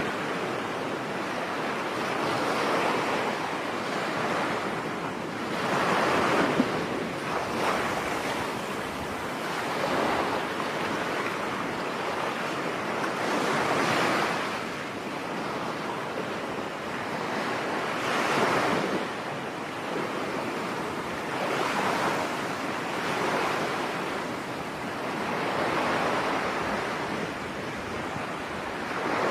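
Ocean waves breaking on a beach, a continuous wash of surf that swells as each wave comes in, every few seconds.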